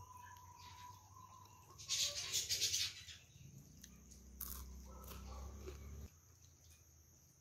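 Crispy scallion pancake (chong you bing) crunching as it is bitten, loudest in a crackly burst about two seconds in with a smaller crunch a little later, then chewing close to the mouth.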